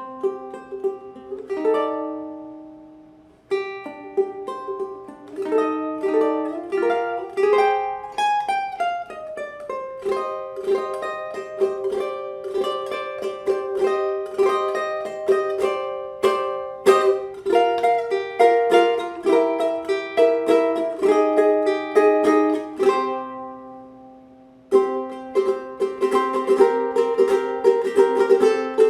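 Ohana TK-250GCE tenor ukulele strung with D'Addario EJ88T Nyltech strings, played solo: plucked melody notes and chords. Twice the playing pauses and a chord rings out and fades, once near the start and again about two-thirds of the way through.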